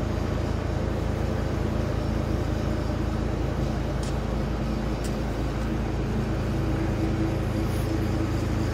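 Diesel engine of a heavy-haulage truck rig running steadily, a low even drone.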